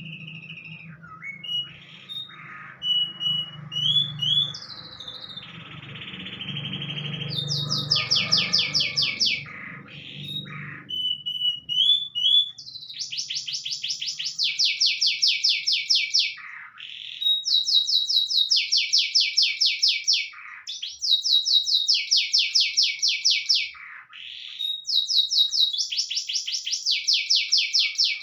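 A panda-variety domestic canary singing a long, vigorous song that includes phrases learned from a white-rumped shama. A loud, fast trill phrase repeats about every two to three seconds, with short whistles and downward-sliding notes between the trills. A low hum sits under the first ten seconds or so.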